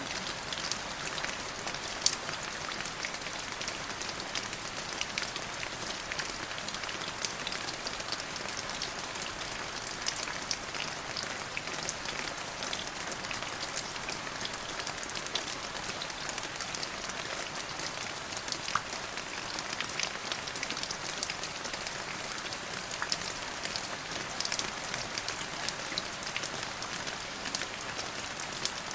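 Steady rain falling: an even hiss dense with small, sharp ticks of drops striking surfaces, with one louder drop tick about two seconds in.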